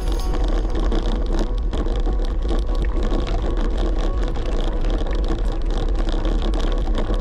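Wind rumbling and buffeting on a camera microphone with no wind suppression, while riding a bicycle. The rumble is loud and steady.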